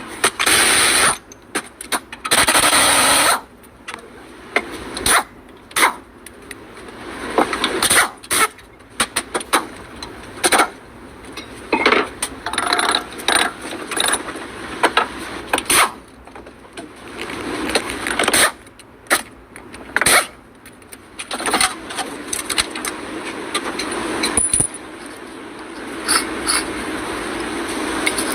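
Work on a truck's front wheel hub bearing: two roughly one-second bursts of a power tool near the start, then many metal clanks, knocks and scrapes as the parts are handled.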